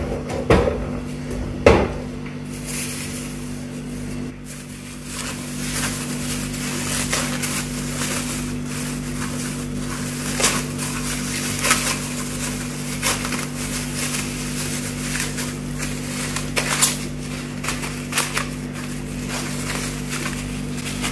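Thin plastic wrap crinkling and rustling as hands wrap and shape soft poundo yam swallow into balls, with a couple of knocks in the first two seconds. A steady low hum runs underneath.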